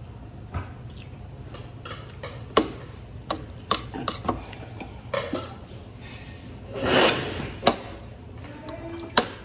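Metal spoon and fork clinking and scraping on a plate during a meal: a dozen or so sharp, irregular clicks, with one longer scrape about seven seconds in, over a low steady hum.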